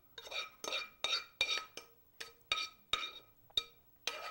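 Metal spoon scraping against a skillet, about two to three short strokes a second with a faint metallic ring, as spaghetti and garlic are scraped out of the pan onto a plate.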